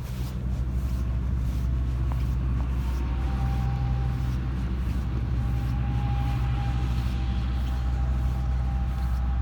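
A steady low engine hum, with a faint higher whine coming in about three seconds in.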